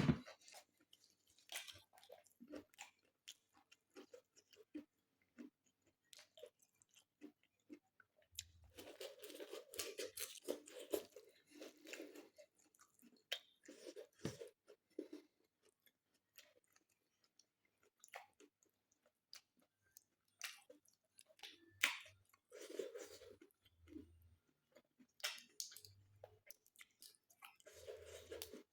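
Close-miked chewing with crunches and soft mouth clicks, coming in bursts with quiet pauses between, and one sharp click right at the start.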